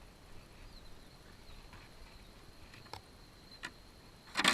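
Quiet outdoor background with a faint steady high insect-like tone, a couple of faint clicks, and a short loud rustle near the end as the RC truck is handled while it sits still.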